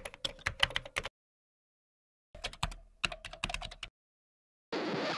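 Computer-keyboard typing sound effect: two quick runs of key clicks, matching text being typed onto the screen. A short burst of hiss follows near the end.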